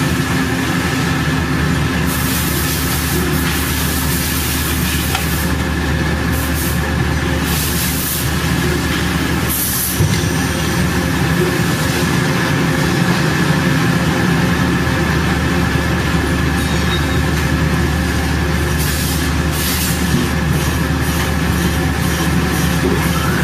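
Heavy industrial machine running steadily: a constant mechanical hum with a high, steady whine over it, and a single knock about ten seconds in.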